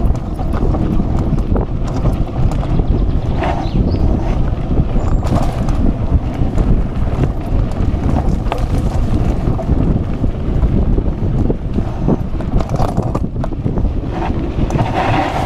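Wind rushing over the microphone of a camera riding on a mountain bike. The bike rattles, and the tyres clatter over a rough dirt trail, with frequent sharp knocks from bumps.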